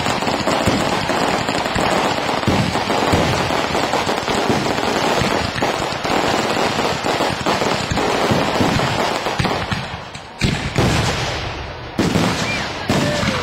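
Fireworks going off: a dense, rapid crackling for about ten seconds, then a few separate sharp bangs near the end as shells burst in the air.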